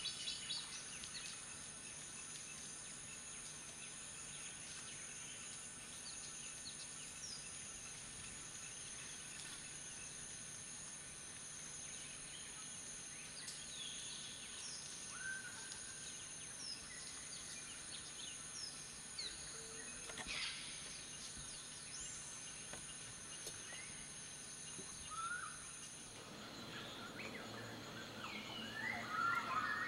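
Outdoor ambience of scattered bird calls, short chirps and whistles, over a steady high-pitched hum. Near the end the hum stops and the bird calls become busier.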